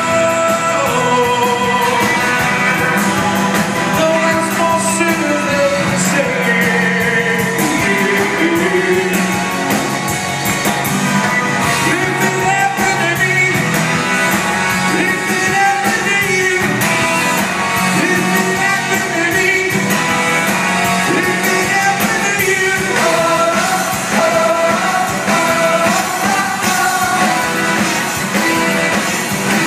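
Live band performing a song with a lead vocal over electric and acoustic guitars, upright bass, drums and keyboard, heard from the audience in a large hall. The music is loud and continuous.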